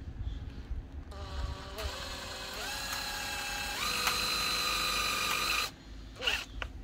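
Cordless drill-driver driving a self-tapping screw into 12 mm cement board. The motor whine starts about a second in, rises in pitch in a few steps as the trigger is squeezed harder, and cuts off suddenly near the end.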